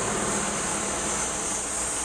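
Minibus engine running as the small bus drives slowly into the parking area, over a steady high-pitched hiss.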